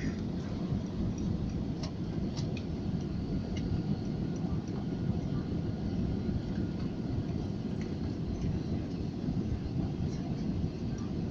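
Airliner cabin noise during a landing: a steady low rumble of engines and airflow with a few faint ticks.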